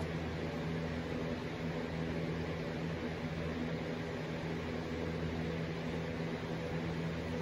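Steady low hum with a faint even hiss from a household machine running in a small room.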